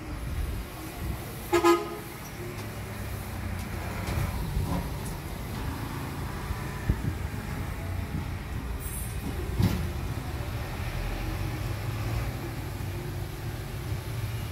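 Small diesel dump truck engine running with a steady low rumble. A short horn toot sounds just under two seconds in.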